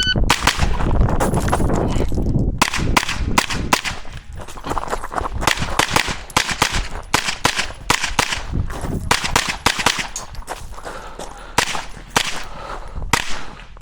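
Shot timer's start beep, then a 9 mm pistol-caliber carbine, a Sig Sauer MPX, fired in fast strings of shots with short pauses between them as the shooter moves through a practical rifle stage.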